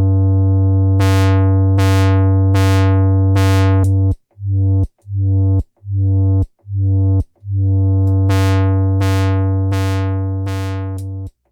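Moog Werkstatt-01 analog synthesizer playing a low note with its envelope generator sweeping the filter cutoff, auditioned in both polarities of the modulation switch. A held note gets repeated bright sweeps that fall away, then four short separate notes, then another held note with the sweeps again.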